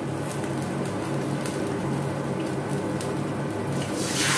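Oil sizzling in a steel wok over a gas burner, with faint crackles over a steady low hum. About four seconds in, water poured from a bowl hits the hot oil and sets off a sudden loud hiss.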